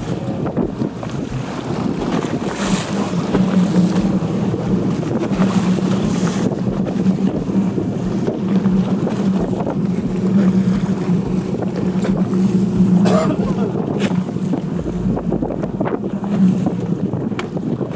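A boat's engine running with a steady hum under wind buffeting the microphone and water rushing past the hull.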